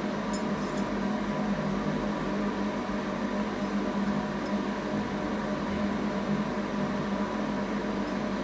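Steady machine hum from the idling fiber laser cutter, with no cutting going on. A few faint light clicks come as the cut brass pendants are lifted off the steel bed.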